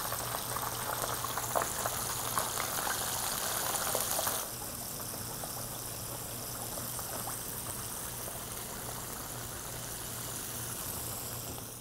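Battered chicken pieces frying in a skillet of hot oil: a steady sizzle with fine crackles, dropping to a quieter, smoother sizzle about four seconds in.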